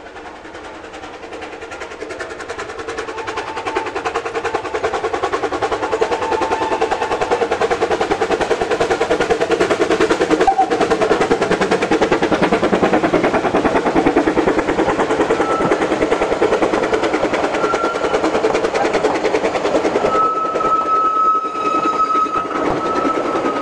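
Narrow-gauge GWR 2-6-2 tank steam locomotive chuffing with rapid, even exhaust beats as it approaches, growing louder over the first few seconds, then its coaches rumbling past. A steady high-pitched squeal sets in near the end.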